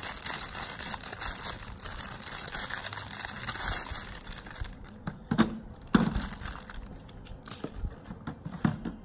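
A thin clear plastic bag crinkling steadily as hands work small Beyblade parts out of it. It stops after about four and a half seconds. Then come a few sharp clicks as the hard plastic and metal top parts knock together and are set down on the plastic stadium floor.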